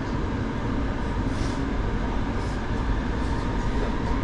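Utsunomiya Light Line low-floor tram in motion, heard from inside the car: a steady low rumble of the running gear on the rails with a fainter hiss above it.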